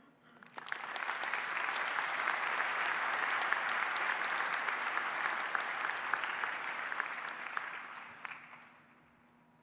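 Conference audience applauding at the end of a keynote talk: a dense patter of many hands clapping that swells up about half a second in, holds steady, and dies away over the last couple of seconds.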